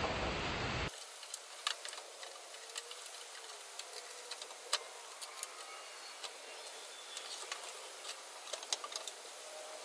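A louder rushing noise in the first second cuts off suddenly. Faint, irregular clicks and light taps follow, as of hands handling the truck's sheet-metal fender.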